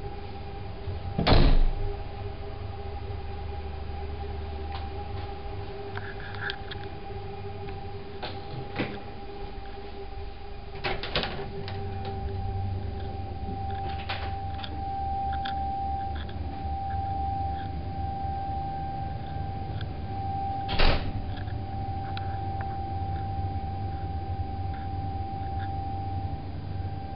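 A steady mechanical hum with a constant whining tone, broken by a few sharp knocks, the loudest about a second in and another about two-thirds of the way through.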